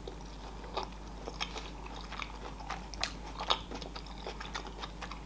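A person chewing saucy barbecue pork ribs with her mouth closed: soft, irregular wet mouth clicks and smacks.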